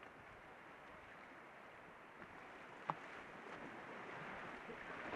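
Faint rushing of river rapids that grows louder over the last two seconds, with one brief knock about three seconds in.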